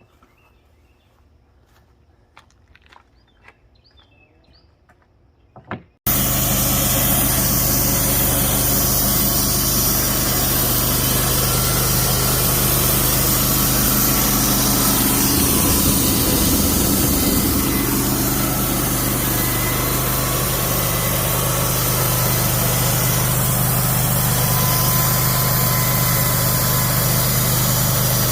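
Wood-Mizer LT15 Wide sawmill engine running steadily at speed, coming in abruptly about six seconds in after a quiet stretch with a few faint clicks.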